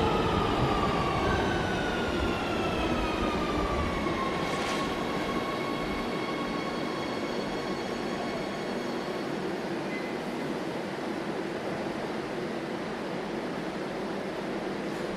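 Metro train running, its motor whine falling in pitch over the first four seconds as it slows, then holding steady over a constant rumble that slowly grows quieter.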